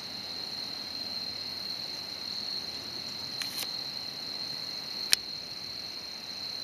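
Steady high-pitched drone of an evening insect chorus, with a few sharp clicks: two close together past the three-second mark and a louder one about five seconds in.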